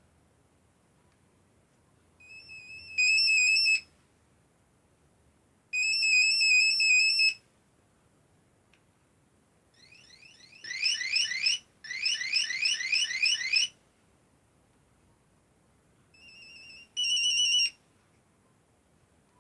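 Nokia 3110 mobile phone playing short monophonic ringtones one after another in four separate bursts of high electronic beeping with silence between them. The first two are a warbling tone, the third a fast run of rising sweeps, and the last a few short steady beeps. Several of the bursts start softly and then jump louder.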